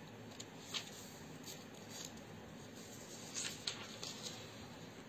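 Quiet room tone with a handful of faint, short rustles and soft clicks, as of small handling movements.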